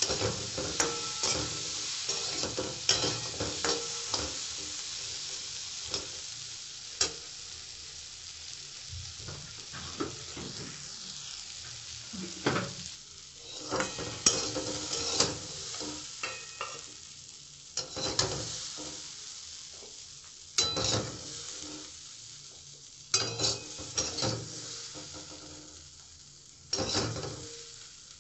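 Jackfruit seeds sizzling as they fry in a metal wok, while a metal spatula stirs them with irregular scraping strokes against the pan. The sizzle grows fainter over time.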